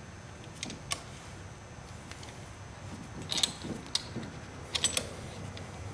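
Steel C-clamp being screwed down on a brake caliper to push the caliper piston back, giving a few light metallic clicks and clinks, several close together in the second half.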